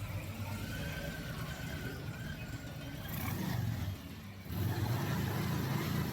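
Motor vehicle engine running, growing louder for about a second near the middle and again for the last second and a half.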